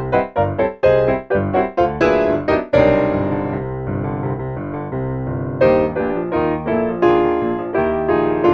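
Solo piano accompaniment: a run of quick, detached notes and chords, then a longer held, ringing passage from about three seconds in, with separate notes returning near the end.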